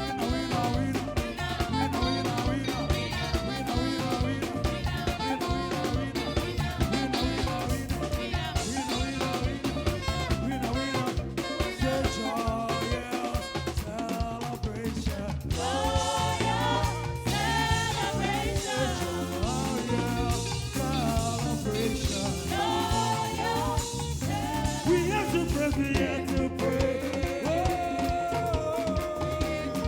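Live church praise band playing upbeat African gospel music with drum kit and bass, continuous throughout. A melody line comes through more strongly from about halfway through.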